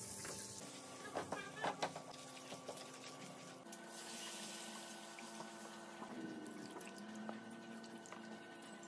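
Melted fat sizzling faintly in a nonstick frying pan with a few small clicks, then, about a third of the way in, milk poured into the butter-and-flour roux and stirred with a silicone spatula: soft pouring and sloshing with scraping against the pan as the white sauce is started.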